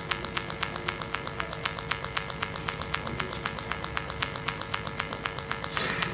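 Steady electrical hum with rapid, evenly spaced clicking interference, several clicks a second, a fault in the service's sound recording. Shortly before the end comes a brief rustle of a paper sheet being handled.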